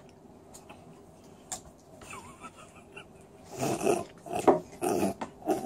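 A man grunting and making mouth-full "mm" noises as he chews a bite of cheese, the noises starting a bit over halfway in. There is a small click about a second and a half in.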